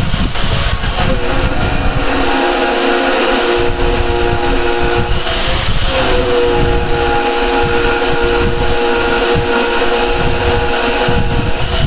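Yato YT-82185 portable band saw running, its blade cutting through a steel angle: a steady motor whine with metal-cutting hiss. The pitch dips briefly twice as the motor takes load.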